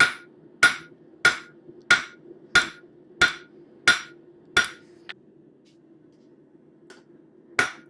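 Hand hammer striking hot stainless steel bar stock on an anvil: eight ringing blows at an even pace of about one and a half a second, a pause of about three seconds, then another blow near the end, over a steady low hum. The blows are drawing out a taper for a knife handle.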